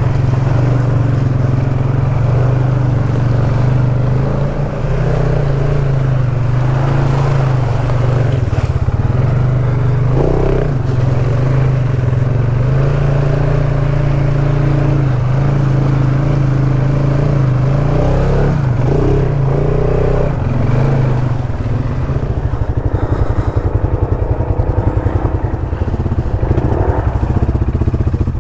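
ATV engine running at a steady pitch under load on a rough trail. About two-thirds of the way through, the steady note gives way to a rapid, even pulsing as the revs drop.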